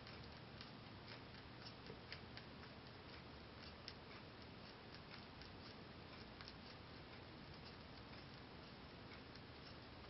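Holland lop rabbit chewing timothy hay: a faint, quick run of small crisp crunching clicks, several a second, over a steady low hiss.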